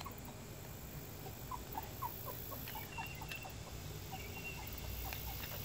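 Puppy whimpering in short, high squeaks, several a second, with faint clicks from the light being handled.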